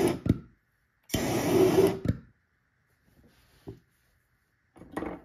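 Methanol jam jar pulsejet lit with a torch, giving a whoosh of burning vapour about a second long that dies out instead of running on: its lid's seal is burnt off. Later a small knock and a short rush of noise.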